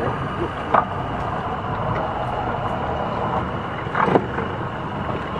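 Boat motor running steadily, a low even rumble, with two short louder sounds about a second in and about four seconds in.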